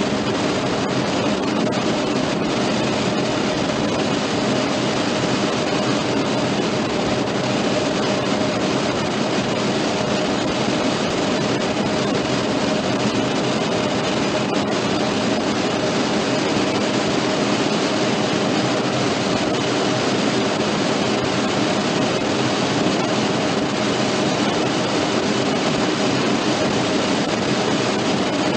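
Steady buzz and hiss of cockpit voice recorder audio from a Boeing 757 flight deck, with a constant hum underneath and no change in level.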